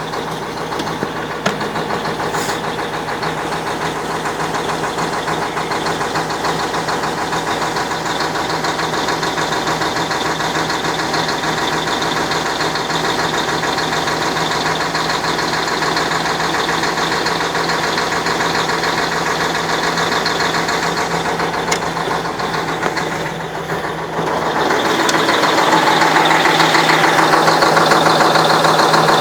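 YaMZ-6581.10 V8 diesel truck engine running steadily with a knock that the owner cannot explain. It grows louder about three-quarters of the way through.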